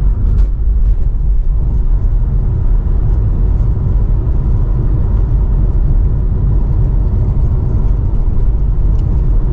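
Steady low engine and road rumble heard from inside the cabin of a Porsche 944 S2 cruising along, its 3.0-litre four-cylinder engine running at an even pace.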